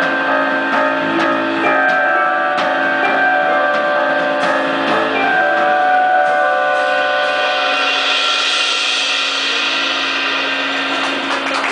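Live band playing the instrumental close of a song: guitar chords held and ringing steadily, with a cymbal wash swelling in the second half.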